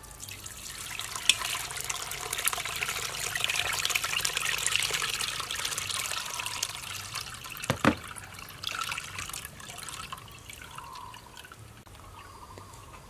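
Coconut milk poured from a plastic bowl through a metal mesh strainer, splashing into a metal pot; the pour swells, then thins to a trickle. A single sharp knock about eight seconds in.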